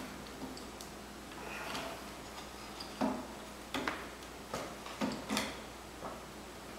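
Pedal wrench clicking and knocking against a bicycle pedal as the pedal is tightened onto its crank arm. The sharp metal clicks come at irregular intervals, most of them between about three and five and a half seconds in.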